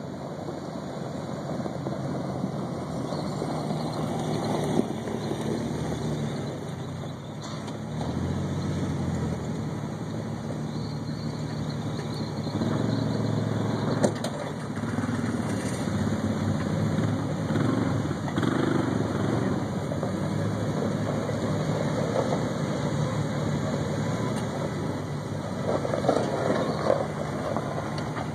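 Jeep truck's engine running at low revs as it crawls down a steep rock slope, the engine note shifting now and then with the throttle. A single sharp knock about fourteen seconds in.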